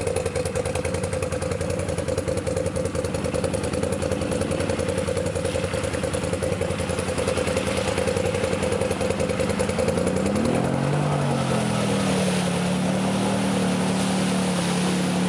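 Arctic Cat ATV engine running at low revs with a fast, even chug, then about ten seconds in revving up and holding a higher pitch as the quad pushes through water, with splashing spray.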